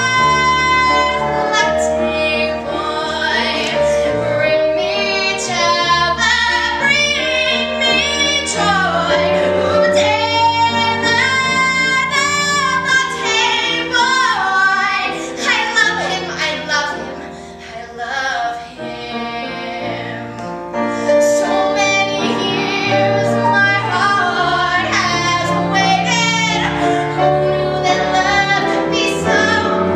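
A woman singing a cabaret song solo into a microphone, with held notes over instrumental accompaniment. It drops to a quieter passage a little past the middle, then builds again.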